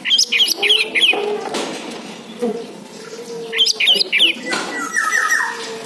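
Orange-headed thrush singing: bursts of quick, sharp, rising and falling whistled notes near the start and again a little before the end, with lower warbled phrases in between.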